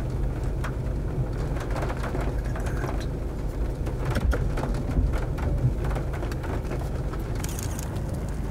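Wind rumbling on the microphone, a steady low rumble with scattered ticks and clicks.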